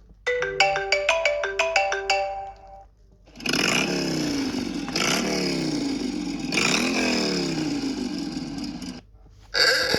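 iPhone ringtones playing one after another: a quick run of short plucked-sounding notes, then a longer, denser ringtone whose pitches slide down and up repeatedly for about six seconds, and another ringtone starting near the end.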